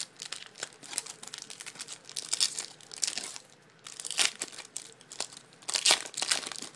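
Foil trading-card pack wrappers crinkling and being torn open by hand, in irregular bursts of crackle, loudest a little after four seconds and again around six seconds in.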